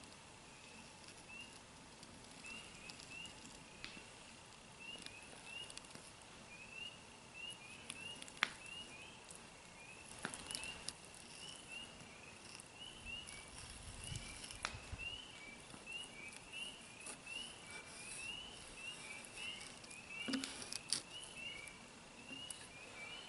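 Faint chorus of small frogs peeping, short rising calls repeated and overlapping several times a second. A few light clicks of a fillet knife working through a northern pike's flesh and bones come through over it.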